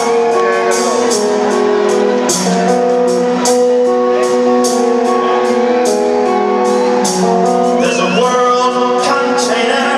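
Live rock band playing: electric guitar holding and stepping through long sustained notes over a steady beat of cymbal hits about twice a second, with a male singing voice coming in near the end.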